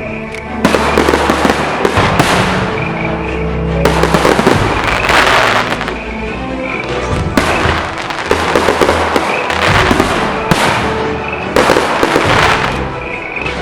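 Fireworks going off in repeated waves of dense crackling and popping, each lasting a second or more, with music playing underneath.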